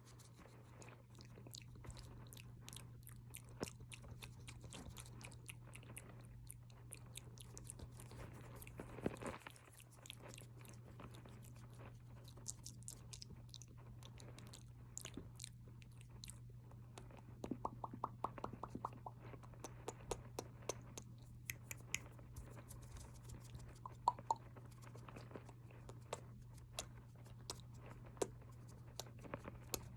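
Close-miked ASMR mouth sounds: a steady scatter of small wet clicks and smacks from lips and tongue, with a quicker run of clicks a little past halfway. A steady low hum lies underneath.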